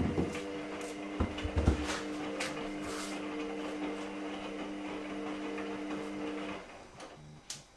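A steady electrical hum that cuts off near the end, with scattered knocks, taps and a few low thumps of things being handled on a kitchen counter.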